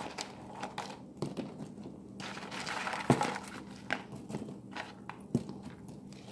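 Brittle blocks of dry instant ramen noodles being handled and set into a pan of water, with dry crinkling and crunching and light knocks, the sharpest about three seconds in and again after five seconds. A faint steady hum lies underneath.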